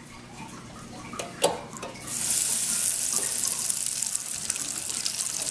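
Hot oil in an electric deep fryer suddenly breaking into loud, steady sizzling and bubbling about two seconds in, as a basket of breaded macaroni-and-cheese balls goes into it. A few light clicks come first.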